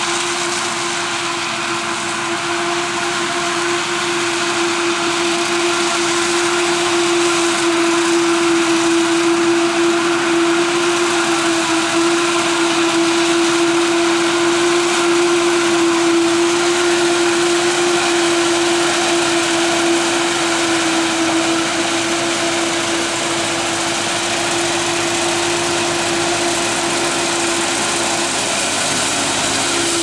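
Krone BiG X 700 self-propelled forage harvester chopping maize under load: a loud, steady machine drone with one constant hum running through it, mixed with a Fendt tractor running alongside as the chopped crop is blown into its trailer.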